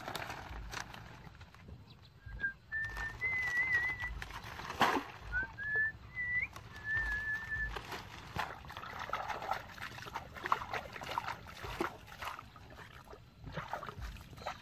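Dry palm fronds rustling and crackling as they are dragged off a bamboo fish trap, with one sharp knock about five seconds in and water splashing near the end. A clear whistling in several short wavering phrases runs from about two to eight seconds in.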